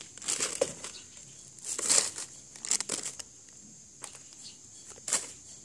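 Plastic wrapping and a plastic tote bag crinkling in irregular bursts as a bagged squishy toy is put into the bag.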